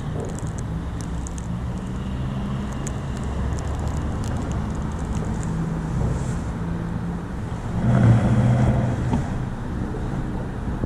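City street traffic: a steady low rumble of car engines, with a louder vehicle going by about eight seconds in.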